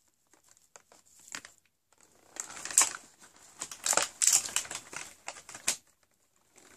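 Crinkling and crumpling of paper and wrapping as a hand handles the opened advent calendar box. There are a few faint clicks at first, then from a little past two seconds in, a run of irregular crackles that stops shortly before the end.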